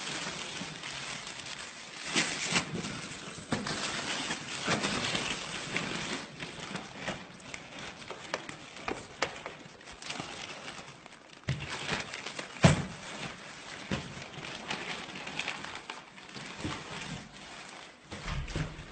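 Plastic bags rustling and crinkling as they are handled and opened, with scattered knocks. There is one sharp knock about two-thirds of the way through.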